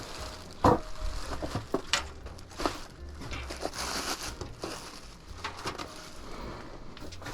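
Irregular crinkling and rustling of packaging with sharp clicks and knocks, as PC parts are unpacked and handled during assembly.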